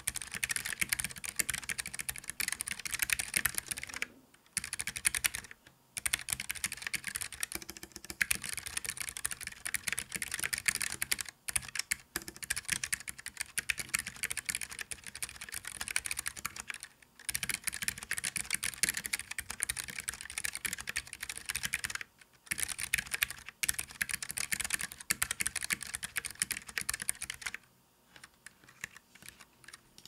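Fast typing on a Keychron K3 low-profile keyboard with optical white (clicky) switches, resting on a bare desk. The keystrokes come in long dense runs broken by brief pauses, and they stop a couple of seconds before the end.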